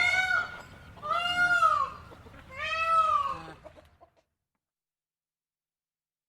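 An animal calling three times, each call a drawn-out cry that rises and then falls in pitch.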